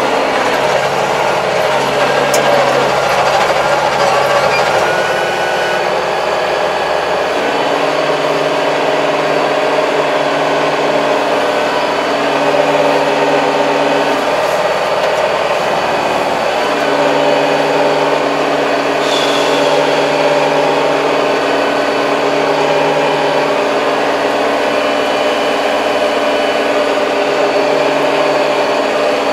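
Diesel engine of a Kubota 75-horsepower tractor running steadily as the tractor drives, heard from inside the cab. Its note shifts about a quarter of the way in and again just past the middle.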